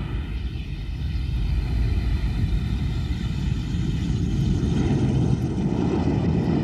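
Jet aircraft passing: a heavy rumble growing louder, with a whine above it falling slowly in pitch.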